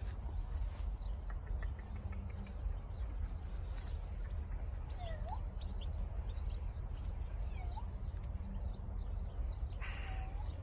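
Wind rumbling on the microphone, with small birds chirping now and then and a louder short call near the end.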